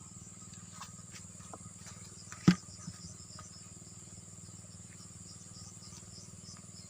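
Outdoor riverside ambience: a steady low hum and a steady high-pitched insect-like buzz, with a few light clicks and one sharp knock about two and a half seconds in.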